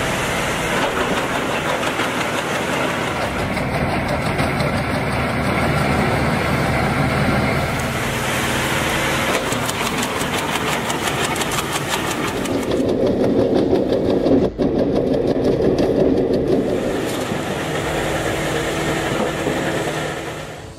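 Wood chipper running under load as branches are fed into it, a steady mechanical din. About twelve seconds in, the sound turns lower and duller.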